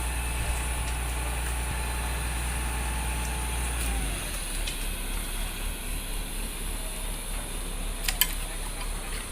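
An engine running steadily with a low hum; about four seconds in its note drops lower and weaker. There is a single sharp click near the end.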